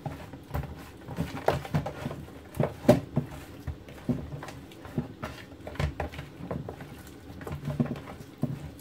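Hands turning and rubbing pieces of horse mackerel in a plastic tub to work in garlic, salt and chicken stock seasoning: irregular soft pats, rustles and knocks against the plastic.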